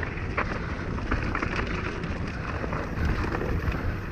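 Mountain bike rolling fast down a dirt trail: wind buffeting the camera microphone with a steady low rumble, tyres crunching over dirt and loose bits, and scattered small clattering knocks from the bike over bumps.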